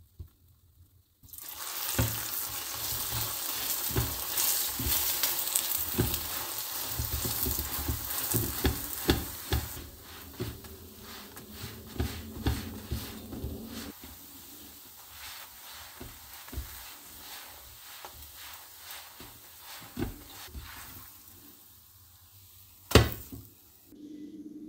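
Paratha frying in oil in a nonstick pan: sizzling that starts suddenly about a second in, loud at first and weaker after about ten seconds, with many short taps of a spatula against the pan and one sharp tap near the end.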